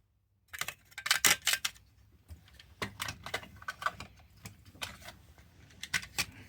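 Small hard polished stones clicking and clattering against each other and a hard surface as they are handled and sorted. A quick flurry of clicks comes about half a second in, followed by scattered single clicks.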